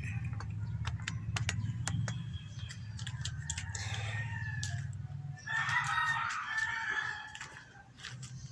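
A rooster crowing, loudest about five and a half seconds in. Under it run a low hum that fades out around the same time and scattered sharp clicks.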